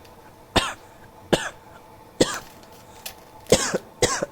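A person coughing repeatedly: a string of about six short coughs, roughly one every three-quarters of a second, each starting sharply and dying away quickly.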